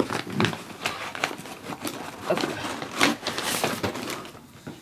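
Crumpled packing paper rustling and cardboard scraping as hands rummage through a shipping box and shift plastic Blu-ray cases, in irregular crinkles and light knocks.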